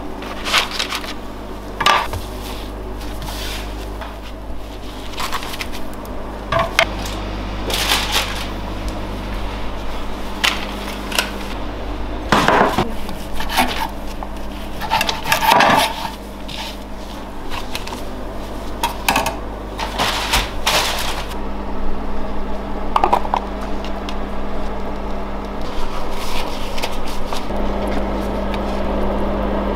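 Kitchen work sounds: scattered knocks and clatter of utensils, trays and a knife on a wooden cutting board as brisket is sliced and sides are served, over a steady low hum.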